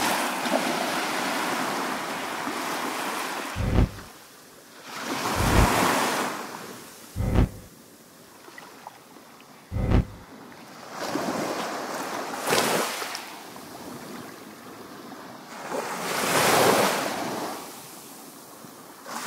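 Sea surf washing onto a beach, the rush of each wave swelling and falling away every few seconds, with a few short low thumps.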